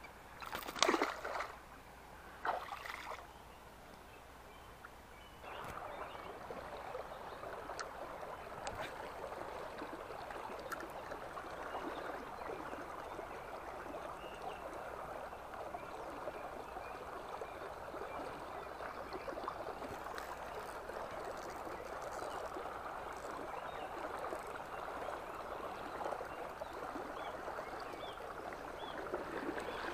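River water flowing and gurgling steadily, starting abruptly about five seconds in. Two brief splashes come near the start.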